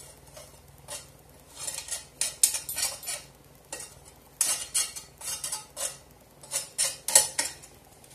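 A metal utensil scraping and clinking against a pan in quick short strokes, in three bursts with pauses between them.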